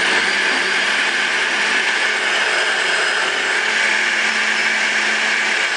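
Countertop jug blender running steadily, grinding soaked almonds with water into almond milk, a constant whir with a low motor hum beneath it.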